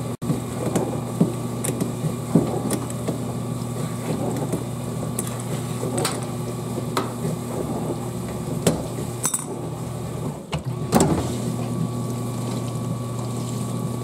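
Frigidaire dishwasher running mid-cycle, its pump giving a steady hum, with scattered clicks and knocks from hands and a wrench working at the base of the machine. The hum drops out briefly about ten seconds in, followed by a louder knock.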